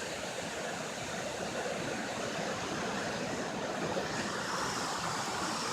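Steady rush of water from a waterfall and its stream, an even roar with no breaks.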